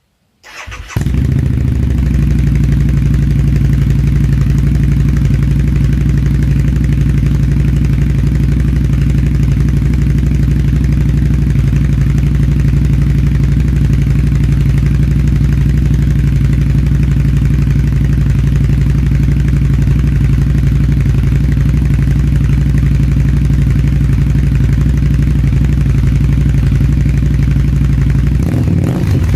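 A 2012 Harley-Davidson V-Rod Muscle's V-twin starts about half a second in and settles into a steady idle through Vance & Hines exhaust pipes fitted with quiet baffles. Near the end the engine note starts to rise and fall as the throttle is blipped.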